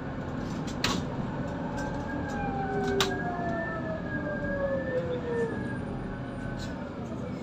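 Cabin ride noise of a Scania Citywide CN280UB CNG city bus under way: a steady low rumble of engine and road, with a whine that slowly falls in pitch through the middle. Two sharp knocks are heard, about a second and three seconds in.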